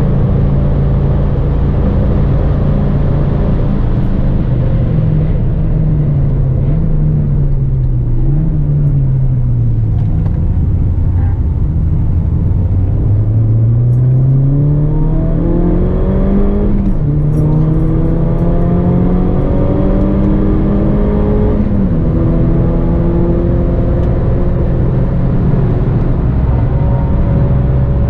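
Mini Cooper engine heard from inside the cabin under hard track driving. It holds steady at first, the revs drop as the car slows about a third of the way in, then climb under full acceleration with two upshifts, before settling into a steady drone at speed with road and wind noise.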